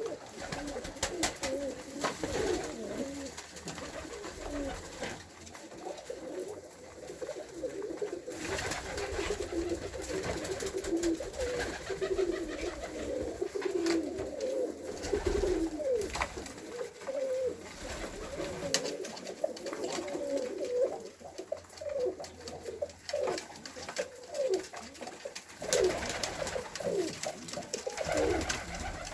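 Bessarabian roller pigeons cooing, many birds overlapping continuously, with scattered sharp clicks mixed in.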